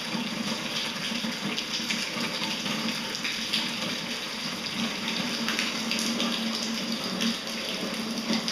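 Rainwater cascading and dripping down a cave shaft, a steady splashing with many separate drops striking rock, the flow swollen after two days of heavy rain.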